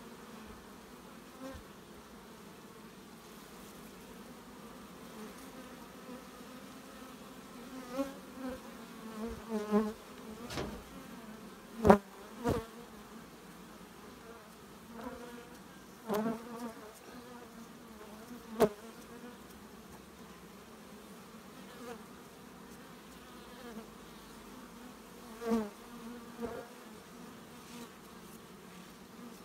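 Carpathian honeybees buzzing around the open hive, with bees flying close past the microphone several times in rising and falling sweeps. A few sharp knocks cut through, the loudest about twelve seconds in.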